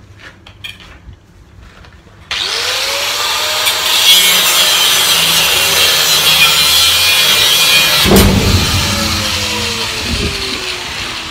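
Angle grinder cutting through a seized steel bolt on a steel deck hatch. It starts suddenly about two seconds in and runs loud and steady with its motor whine under the cut. There is a knock about eight seconds in, and the whine sinks in pitch over the last few seconds.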